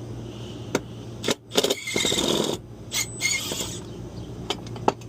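Hands and tools working the screws of a mini-split condenser fan motor's mounting bracket: scattered metallic clicks and knocks, with about a second of rattling, scraping noise near the middle. A steady low hum runs underneath.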